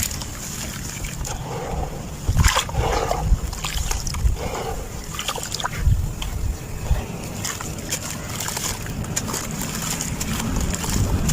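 Chunks of sand-cement crumbling and being crushed: irregular crunches and crackles, with a few louder crunches between about two and five seconds in.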